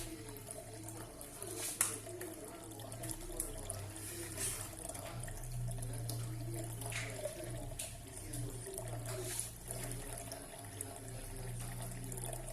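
Water falling and splashing in a small decorative fountain, running steadily with a low steady hum underneath and a sharper splash about two seconds in.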